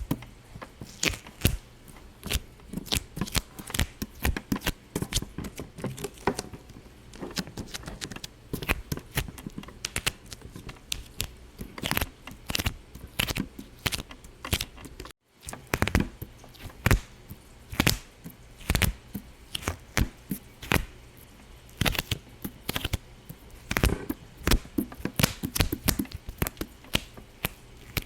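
Irregular run of sharp pops and clicks, several a second, broken by a brief moment of silence about halfway through.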